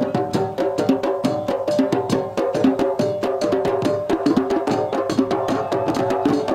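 A group of djembe drums struck by hand in a fast, dense rhythm of many sharp strokes a second.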